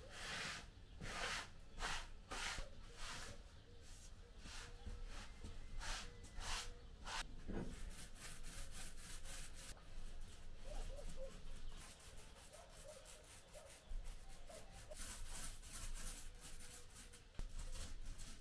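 Faint rubbing strokes of a small paint roller on a wall, about two a second at first, then quicker and denser from about eight seconds in.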